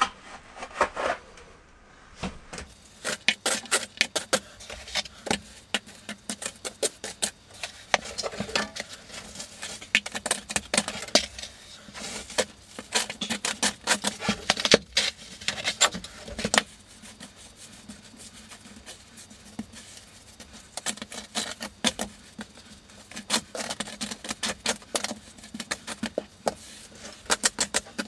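Small trowel and gloved hand working wet deck mud around a plastic shower-drain flange: an irregular run of quick scrapes, taps and clicks as the mud is packed under the drain, easing off for a few seconds past the middle before picking up again.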